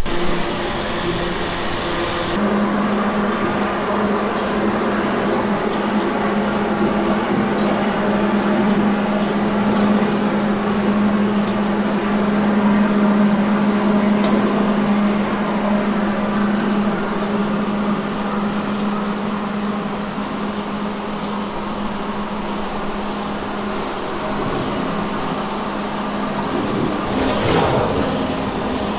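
Steady running of food-plant machinery: a stainless wire-mesh conveyor and quick-freezer unit, with a steady hum and scattered light clicks. The hum sets in about two seconds in.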